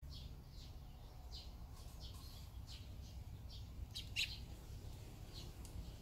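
Barn swallows chirping at their nest: a run of short high chirps, a few each second, with a louder cluster about four seconds in.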